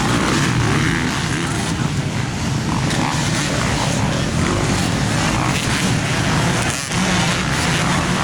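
Many dirt bike engines running together at the start area, a steady loud drone of overlapping engines with a brief dip near the end.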